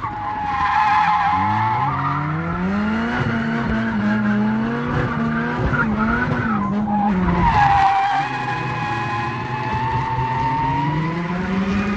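Nissan Bluebird's SR20 four-cylinder engine revving hard through a drift, with the tyres squealing and skidding. The engine note climbs over the first few seconds and holds high, drops off briefly about seven seconds in as a loud tyre squeal rises, then climbs again near the end.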